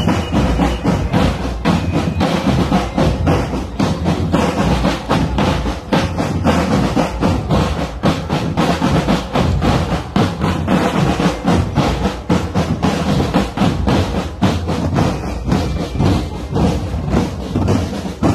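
Indonesian Air Force Academy cadets' marching drum band playing as it passes, with snare and bass drums beating a steady marching rhythm.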